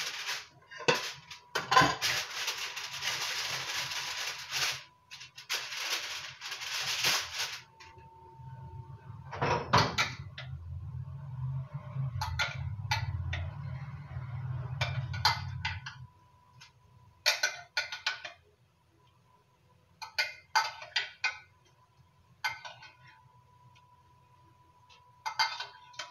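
Kitchen food-preparation handling sounds: a few seconds of crackly rustling, like aluminium foil being handled, then a spoon clinking and scraping against a glass bowl in short scattered strokes as filling is scooped out. A low rumble sounds for several seconds in the middle, and a faint steady tone runs underneath throughout.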